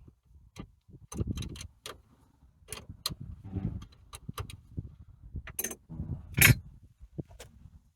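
Irregular metallic clicks and clanks of hand tools being worked on the sawmill's cable clamp and bolt fittings, with one louder clank near the end.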